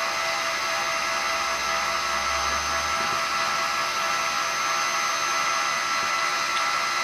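Small electric motor of a SkyRC 1/4-scale RC motorcycle running steadily, drawing about 1.3 amps, with a steady high whine over a whir. The owner takes the fault to be in the control board, which is not regulating the motor and leaves it running flat out.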